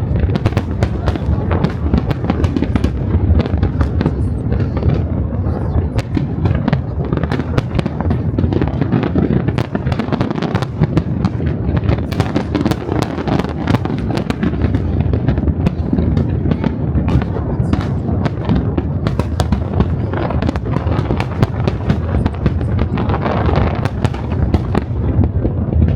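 Aerial fireworks going off in a dense, continuous barrage: many sharp bangs and crackles one after another over a heavy low rumble, with no gap.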